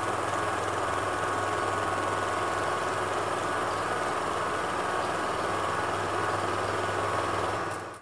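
Steady mechanical whirring with a constant hum, even in level throughout, fading out near the end.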